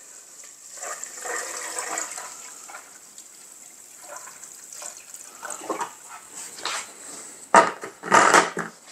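Tomato paste wash pouring steadily from a plastic jerry can into the stainless steel boiler of an Air Still Pro. Near the end, two louder knocks as the plastic can is set down.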